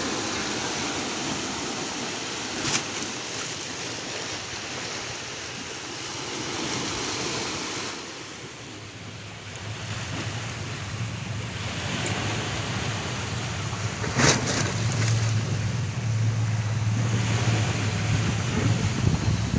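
Sea waves surging and washing against a ferry, with wind buffeting the microphone and a couple of sharper splashes. From about halfway, a low steady drone from the ship's engine grows under the water noise.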